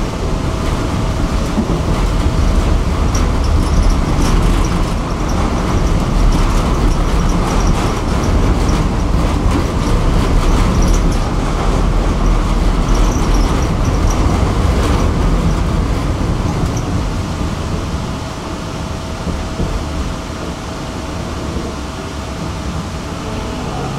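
A tram running on its rails: a steady rumble of wheels with a constant hum, faint high wheel squeals twice and scattered clicks over the track. It eases to a quieter run over the last few seconds.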